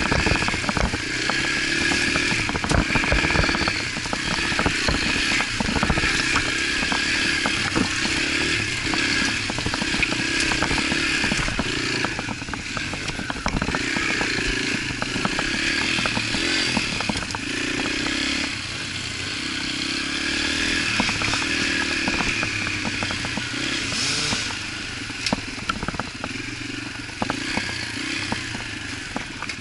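Yamaha TT-R125 dirt bike's single-cylinder four-stroke engine running steadily at trail speed, with frequent knocks and rattles from the bike riding over rough dirt; it eases off a little in the last few seconds.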